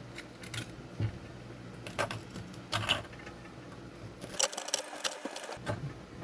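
Metal reamer blades scraping and grinding carbon cake from the inside of a heavily smoked briar pipe bowl, in a run of short rasping strokes with small clicks, coming thick and fast in the second half.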